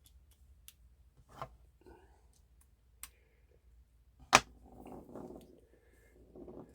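Light clicks and handling noise from a small driver and a pocket knife being worked on, with one sharp metallic click about four seconds in, followed by soft rustling.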